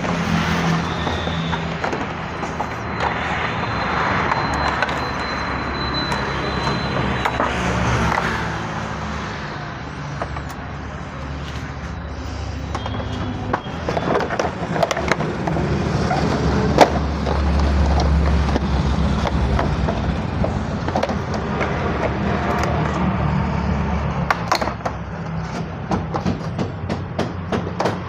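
Short clicks and knocks of hand tools and plastic body panels as a motorcycle's tank, seat and side shields are taken off, with one louder knock about two-thirds of the way in, over a steady background.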